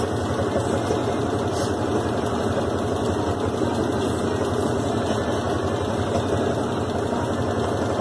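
GE Super Capacity top-loading washing machine in its spin cycle, the basket spinning with a steady mechanical hum.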